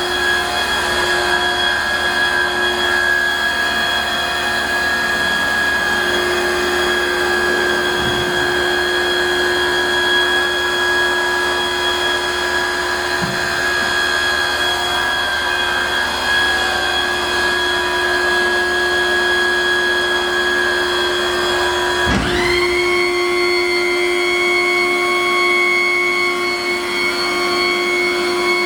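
Electric hydraulic pump motor of a Hydrolec self-contained trash compactor running a compaction cycle, a steady loud whine. About 22 seconds in, the pitch jumps suddenly higher and holds there.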